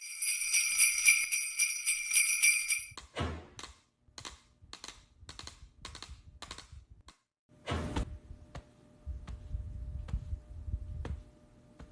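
Jingle bells shaking for about three seconds, then a run of short taps, about two a second, for some four seconds. Near eight seconds comes a louder rushing burst, followed by a low rumble with a few sharp clicks.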